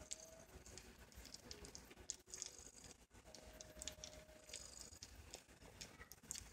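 Faint soft clicking and smacking of newborn Sphynx kittens suckling at their mother, with a couple of faint brief tones.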